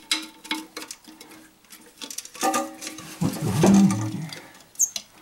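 Plastic parts of a toilet flush valve clicking, knocking and rubbing as the cap and seal are twisted and worked loose from the valve body, the part sticking. A longer, louder rub about three seconds in.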